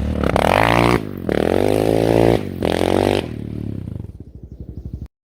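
Dirt bike engine revving: the revs climb and fall in about three throttle bursts, then drop to a low, uneven putter before cutting off suddenly near the end.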